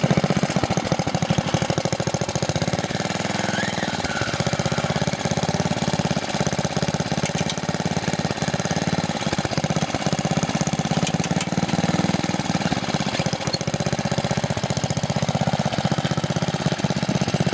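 Off-road 4x4's engine running steadily at low revs, its firing pulses throbbing evenly with small swells in level.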